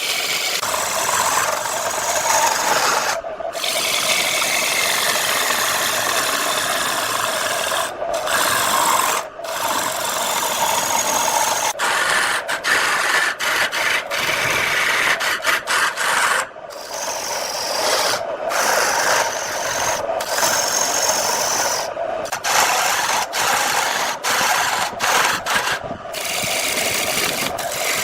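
Wood turning on a lathe with a cutting tool held against it: a continuous rasping scrape over a steady hum, broken by brief sudden gaps every few seconds.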